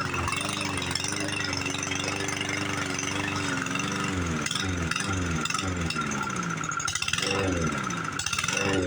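Small lawn mower engine running at a steady fast speed, then its revs sag and drop again and again, picking up briefly twice near the end before falling off: the engine is faltering and trying to stall.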